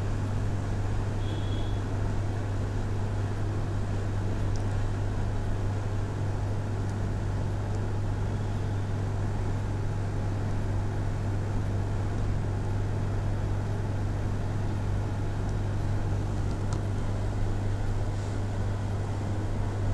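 Steady low hum over an even background hiss, with a few faint clicks.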